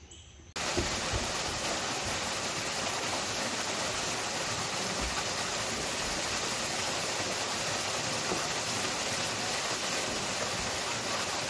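Small waterfall pouring into its plunge pool: a steady, even rush of falling water that sets in suddenly about half a second in.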